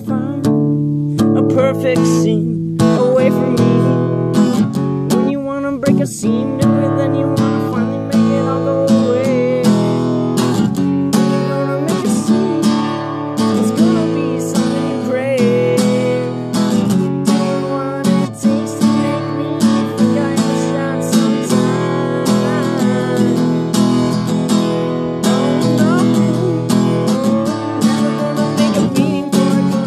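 Acoustic guitar strummed in a steady rhythm, chords ringing without singing: an instrumental passage of a song.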